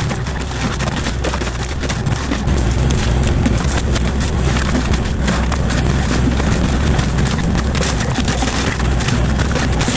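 Forestry mulcher head on a Kubota KX040-4 mini excavator shredding briars and brush: a steady, dense grinding full of crackling as wood is chipped, over the low hum of the excavator's engine. It gets a little louder about two and a half seconds in.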